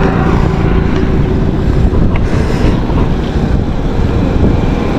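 Wind buffeting the microphone of a bike-mounted camera while riding along a road, a loud, steady low rushing noise.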